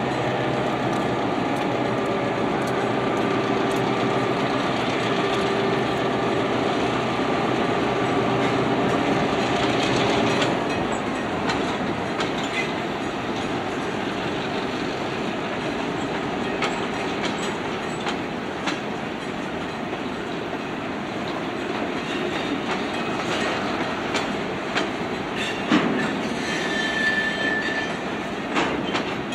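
Diesel locomotives moving a hopper car, the engines droning steadily for about the first ten seconds, then wheels rolling with scattered clicks over the rail joints. Near the end there is a thump and then a brief high wheel squeal.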